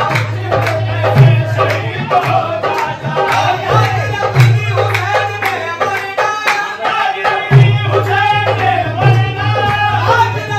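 Qawwali music: a voice singing over tabla drumming, with deep drum strokes coming every second or two.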